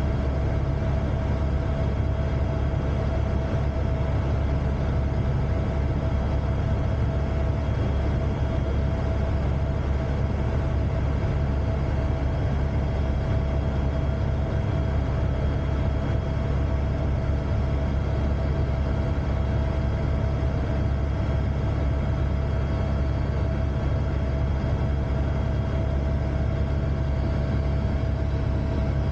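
AS350 helicopter in flight: a steady low drone of rotor and turbine with a constant whine above it, unchanging throughout.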